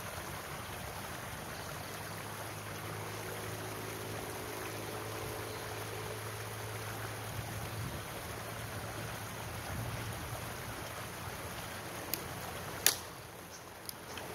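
Steady rush of a shallow stream running over rocks. Near the end come a few sharp cracks of dry firewood being handled and broken, one much louder than the rest.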